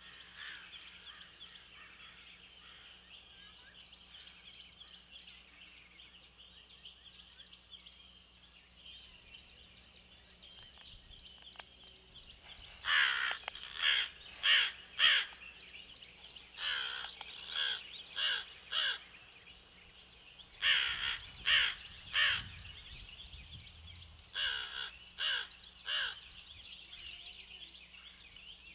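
Crows cawing in four bursts of three to five harsh calls, starting about halfway through, over a steady high-pitched background hiss.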